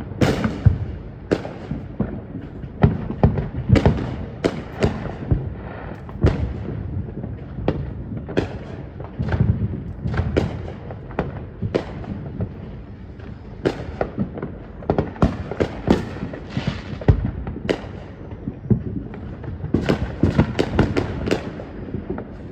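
Backyard consumer fireworks going off: a long irregular string of sharp bangs and crackles, some close together, with a denser run of rapid pops near the end.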